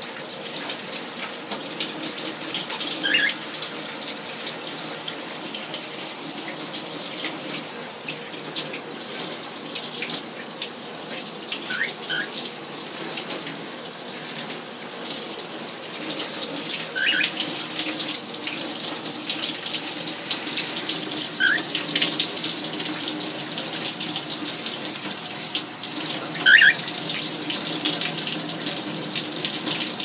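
Water from a shower running steadily, with a wet cockatiel giving about five short chirps, a few seconds apart.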